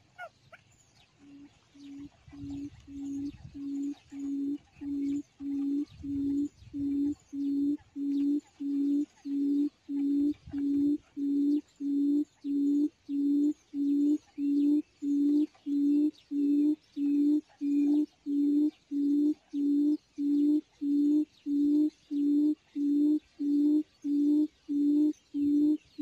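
A recorded quail call played through a speaker: a low hooting note repeated in a very even rhythm, about one and a half a second. It grows louder over the first ten seconds or so, then holds steady, with a few low rumbles near the start.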